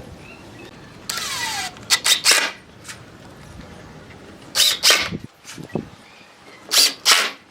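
Woodworking tool noises: a short rasping stroke with a falling squeal about a second in, followed by a few sharp knocks, the knocks coming again near the middle and near the end.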